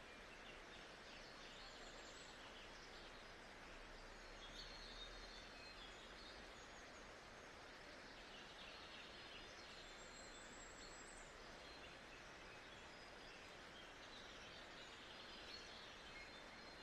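Faint nature ambience: a steady soft hiss with distant birds chirping on and off.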